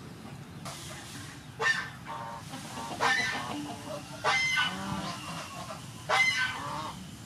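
Domestic poultry calling: four loud calls, each under a second long, about a second and a half apart.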